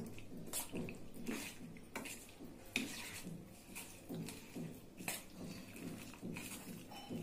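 Steel spoon stirring boneless chicken in an egg and cornflour marinade in a stainless steel bowl: repeated scrapes and clinks of the spoon against the bowl, a little more than one stroke a second, with wet squelching of the coated meat.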